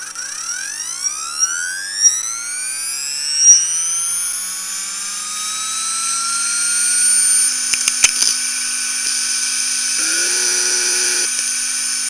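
A healthy Seagate 15,000 rpm SAS hard drive spinning up: a whine that rises in pitch over the first several seconds as the platters come up to speed, then holds a steady high whine at full speed. A few brief clicks come about two-thirds of the way through. This is the normal start-up sound of a working drive.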